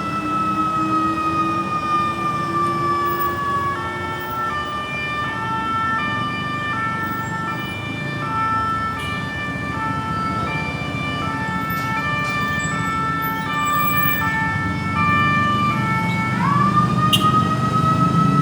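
Ambulance electronic siren. It opens with a slow wail falling in pitch, changes about four seconds in to an alternating high-low two-tone pattern, and near the end sweeps back up into a wail. Vehicle engine and traffic noise run underneath.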